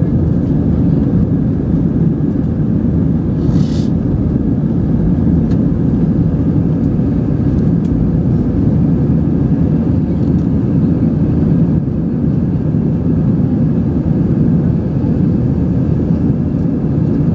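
Airliner cabin noise in flight: a loud, steady low rumble of engines and rushing air, with a faint steady hum above it.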